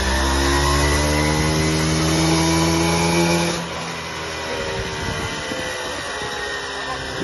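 Classic Vespa scooter's two-stroke engine revving under load on a roller dyno, its pitch climbing steadily in a dyno pull. About three and a half seconds in the throttle is shut, and the engine drops back to lower, uneven running.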